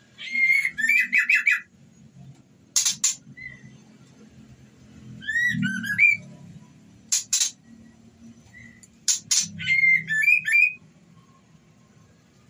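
White-rumped shama (murai batu), said to be a female in breeding condition calling to a male: short runs of quick whistled notes alternating with brief harsh calls, repeated several times.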